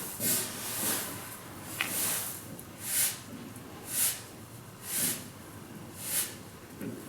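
Loose grain hissing and rustling in short swishes, about one a second.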